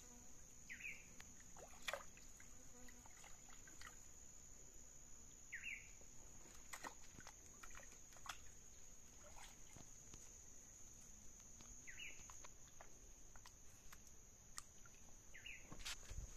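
Faint outdoor ambience: a steady high-pitched insect drone, a bird's short falling call repeated four times a few seconds apart, and scattered light clicks.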